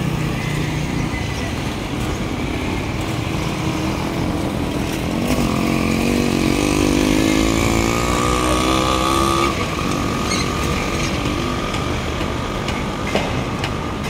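Street traffic with a small motorcycle engine passing close by. About five seconds in, an engine rises in pitch as it accelerates, holds steady, and drops away about nine and a half seconds in.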